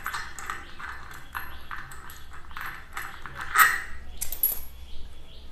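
Light metallic clinks and rattles, several in quick succession with the loudest about three and a half seconds in, as the fan's metal downrod pipe is handled and the supply wire is fed through it.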